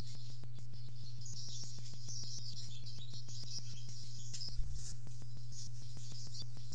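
Faint high bird chirping over a steady low electrical hum and a rapid, even ticking of clicks, with a single thump about four and a half seconds in as a barn swallow arrives at the nest.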